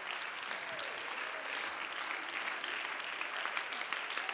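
Congregation applauding, with a few voices calling out over the clapping; sharper individual claps come through near the end.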